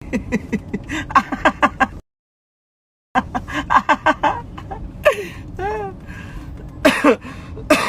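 People's voices making quick, wordless vocal sounds, some high-pitched and sliding up and down in pitch, cut by about a second of dead silence two seconds in.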